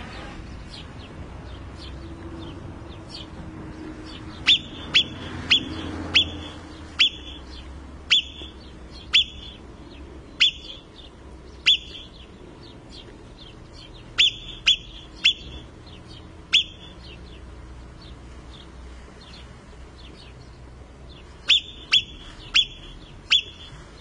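Alpine marmot giving its shrill alarm whistles: short sharp calls that drop quickly in pitch, mostly about a second apart, in runs separated by pauses of several seconds.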